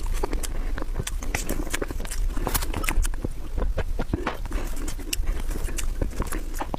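Close-miked wet mouth sounds of eating soft mousse cake: a quick, irregular run of lip smacks and sticky chewing clicks.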